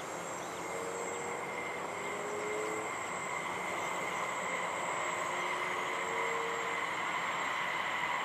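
Steady whine of a multicopter's electric motors and propellers in flight, over a continuous hiss.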